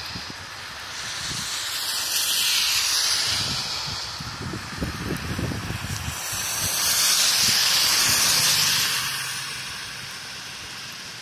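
Heavy rain falling on wet pavement: a steady hiss that swells louder twice.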